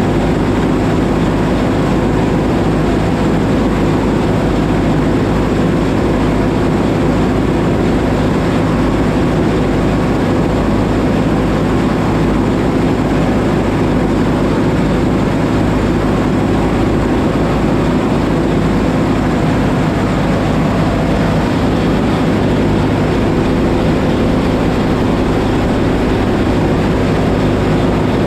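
Oliver 7300 combine running steadily while harvesting wheat: a loud, unbroken engine and machinery drone with a low hum.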